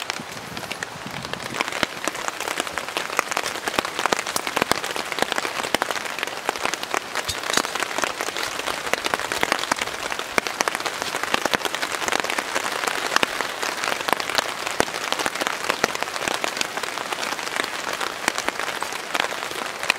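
Rain pattering steadily on a tarp, a dense run of close drop hits that thickens about two seconds in.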